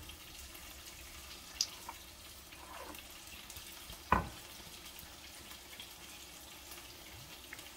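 Hot sauce being poured from its bottle into a bowl, with a faint steady hiss of oil frying. A single sharp knock about four seconds in.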